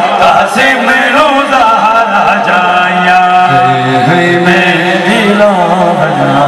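A man chanting a nauha, a Shia lament, into a microphone and out through public-address loudspeakers, holding long wavering notes.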